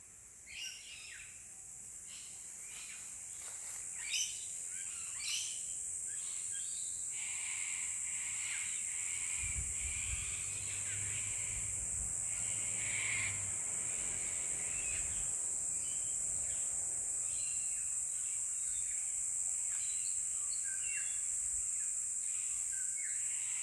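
Wild birds chirping and calling in short, scattered calls over a steady high hiss. A low rumble comes in for several seconds near the middle.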